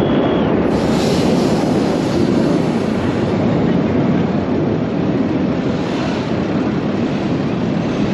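Steady, loud noise of aircraft engines.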